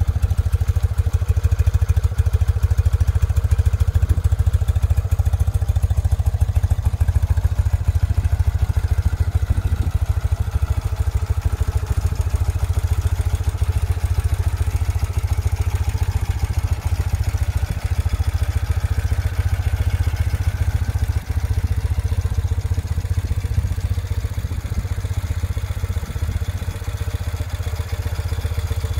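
1971 BMW R75/5's air-cooled 745 cc flat-twin engine idling steadily through its twin mufflers. It has a smooth, even rumble, the engine freshly refurbished with rebuilt carburettors. It gets a little quieter near the end.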